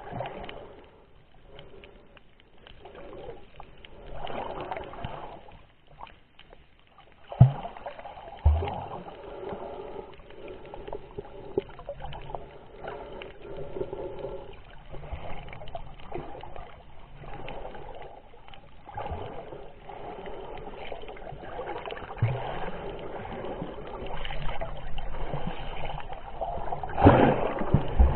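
Muffled water noise heard with the microphone under water, a shifting swirl and slosh with no clear rhythm. A few dull knocks, the loudest about seven and a half seconds in and near the end.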